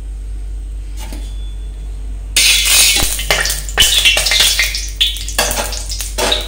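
Flat steel spatula scraping and tapping around the bottom of a metal kadhai, spreading a little oil, in repeated strokes that start about two seconds in. Before that there is only a steady low hum.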